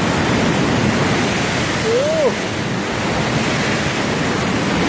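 Mountain stream rushing over rocks, a loud steady hiss of water. About two seconds in there is a single short call that rises and then falls.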